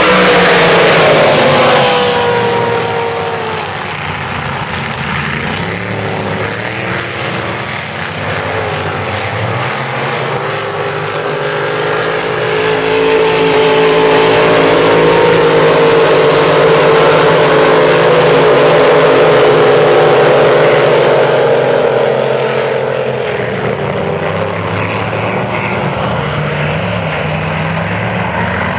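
Several unlimited displacement-class race boats' supercharged engines running at full throttle. One passes close near the start with a falling pitch, the sound eases off, then swells to a loud, steady run through the middle and fades toward the end.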